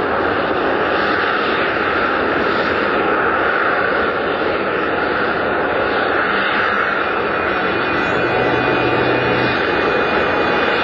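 BAE Harrier GR9 jump jet hovering, its Rolls-Royce Pegasus vectored-thrust turbofan giving a loud, steady jet noise that holds level without rising or falling.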